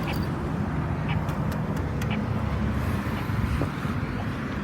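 Road traffic passing, with an accessible pedestrian signal pushbutton's locator tone ticking about once a second over it.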